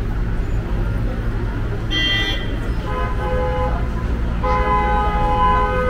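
Car horns honking over a steady rumble of street traffic: a short, higher honk about two seconds in, a second honk lasting about a second soon after, and a long held honk starting about four and a half seconds in.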